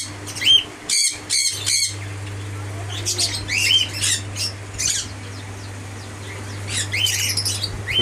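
Several lovebirds chattering with shrill, high-pitched squawks and chirps in quick clusters, easing off about five seconds in and picking up again near the end, over a faint steady low hum.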